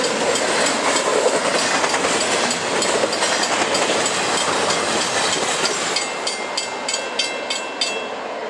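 Double-stack container train's well cars rolling past: a steady rumble with wheels clicking over the rail joints. In the last couple of seconds the train sound drops a little and a level-crossing warning bell is heard ringing, about three strokes a second.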